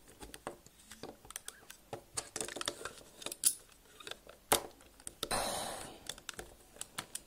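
Plastic Lego bricks being handled: irregular small clicks and knocks, with a rustling scrape lasting about a second about five seconds in, as parts of the puzzle box are fitted and slid.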